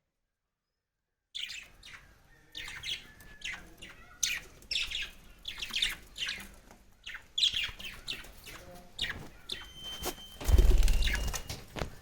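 Young bird's rapid, repeated high chirps, begging while being fed, starting after about a second of silence. Near the end there is a loud low rumble lasting about a second.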